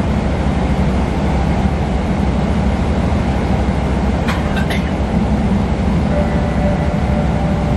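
Steady cabin rumble of a Boeing 777-300ER, from its GE90 jet engines and airflow, heard from inside the passenger cabin. A brief pair of clicks or rattles comes a little past halfway, and a faint steady high tone comes in near the end.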